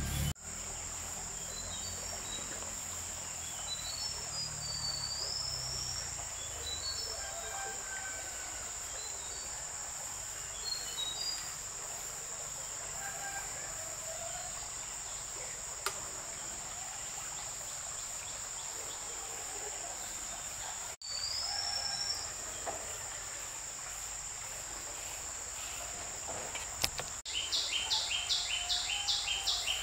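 Outdoor ambience: a steady high-pitched insect drone with scattered bird chirps. Near the end a rapid pulsing call comes in at about three or four pulses a second.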